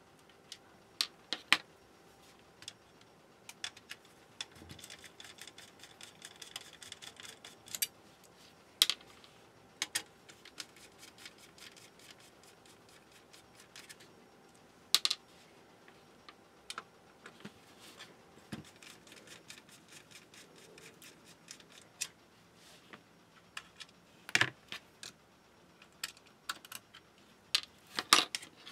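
Scattered sharp clicks and taps of an opened set-top box's metal case being handled and taken apart, with small screws and tools set down on the mat. A rougher scraping stretch runs from about five to eight seconds in.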